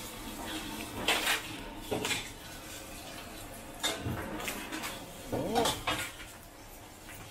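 Clatter of a steel ladle and woks at a gas wok range: a handful of sharp metal knocks and scrapes, about a second in, around two seconds, near four seconds and again around five and a half seconds.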